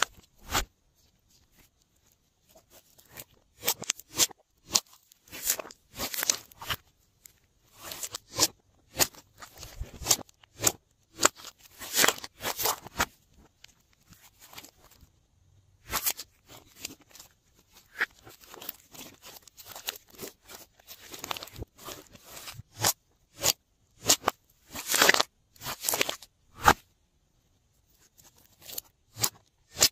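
Glossy slime being stretched, pressed and folded by hand: irregular sticky clicks and small crackling pops in uneven clusters, with a few brief pauses.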